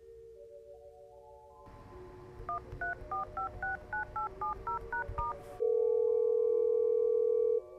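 Touch-tone phone dialing: eleven quick two-note keypad beeps over a soft hiss, a number being keyed in, followed by a loud steady ringing tone for about two seconds that cuts off suddenly, the call going through. Soft sustained music notes run underneath.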